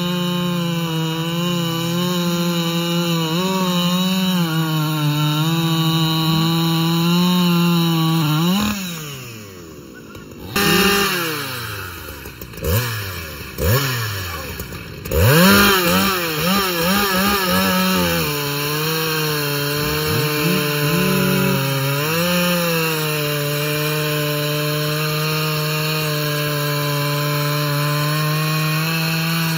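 Large chainsaw at full throttle, cutting steadily through a big log, then easing off and slowing down about eight seconds in. Several quick revs follow, rising and falling, then the saw settles back to full throttle in a long steady cut.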